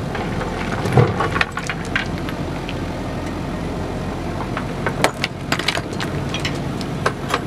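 JCB backhoe loader working: its diesel engine runs steadily while the backhoe bucket scoops and lifts broken stone, with stones knocking and clattering about a second in and again from about five seconds in.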